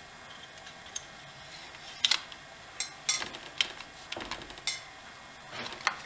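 Irregular small clicks, taps and rustles of hands working a new fuel line through a Poulan chainsaw's plastic housing.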